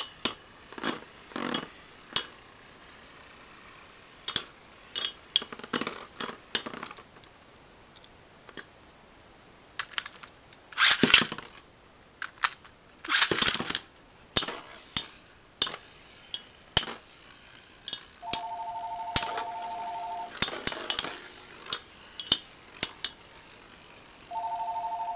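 Metal Beyblade spinning tops clattering in a plastic stadium, a run of sharp clicks and knocks as they strike each other and the wall. Near the middle come two louder rasping bursts as the tops are relaunched with a ripcord launcher. Near the end a steady two-tone electronic beep of about two seconds sounds twice.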